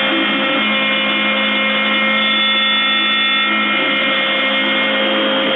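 Hobby CNC milling machine's spindle running at high speed with a steady whine of several tones as its small end mill cuts the wooden bust turning on the rotation axis, during the semi-finish pass.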